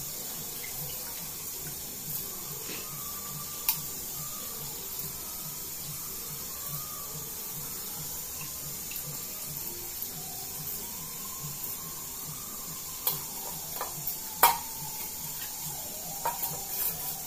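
Seasoned water bubbling at a boil in a metal cooking pot, with a few sharp clicks: one about four seconds in and a louder one near the end.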